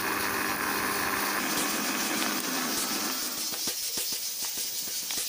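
Electric blender motor running with a steady hum, then spinning down about a second and a half in. A quick run of light ticks follows in the second half.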